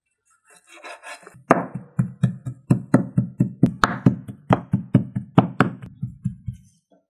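Chinese cleaver chopping raw pork on a wooden cutting board, mincing it by hand: a steady run of sharp chops about four a second, starting about a second and a half in after a brief soft scrape and stopping near the end.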